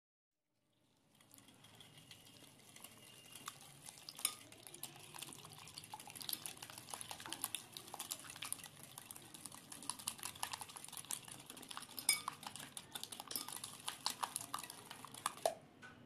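Wire balloon whisk beating a runny egg, sugar and oil mixture in a glass bowl: rapid clicking and scraping of the wires against the glass, with a few sharper clinks. It starts about a second in and stops abruptly shortly before the end.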